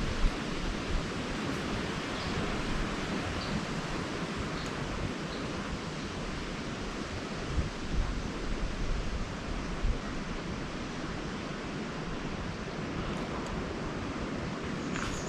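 Steady rushing noise of water, with wind buffeting the microphone in low rumbles and a few thumps.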